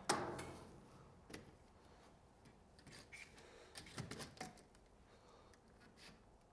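Scattered light clicks and knocks as an LED shop light fixture is handled and snapped onto small metal ceiling brackets. The loudest is a sharp knock right at the start, with fainter clicks after it.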